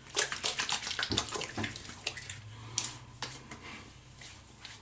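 Wet hands rubbing aftershave together and patting it onto the face: an irregular run of soft wet slaps and smacks, thinning out toward the end.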